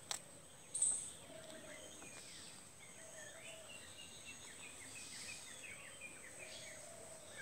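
Small birds chirping and twittering in the background, many short quick calls. Two brief sharp sounds come in the first second, over a thin steady high-pitched tone.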